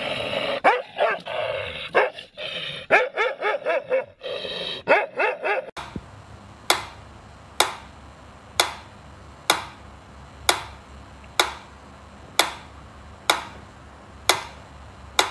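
A dog barking and growling in short, harsh bursts, then, after a cut about six seconds in, a mechanical pendulum metronome ticking steadily about once a second.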